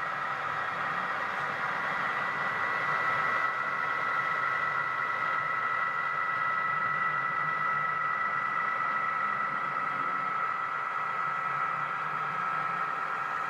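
HO scale model Southern Pacific F-unit diesel locomotives running past on the layout track, giving a steady high-pitched hum from the running train.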